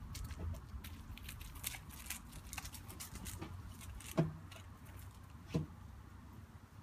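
Seven-week-old red setter puppies at play on a lawn: scattered light clicks and rustles over a steady low rumble, with two short, louder low sounds about four and five and a half seconds in.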